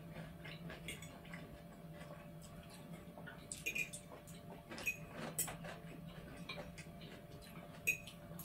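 Metal forks clicking and scraping against plates as people eat, in scattered sharp taps, a few ringing briefly, the loudest in the middle and just before the end, over a faint steady hum.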